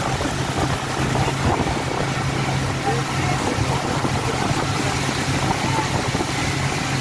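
Boat engine running steadily with the boat under way, a low hum over the rush of water from the hull's wake.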